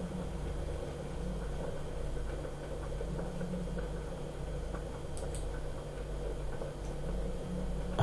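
Steady low electrical hum and room noise picked up by the microphone, with a faint click about five seconds in.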